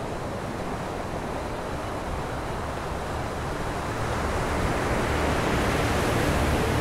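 Ocean surf washing in, a steady rush of breaking waves that slowly grows louder.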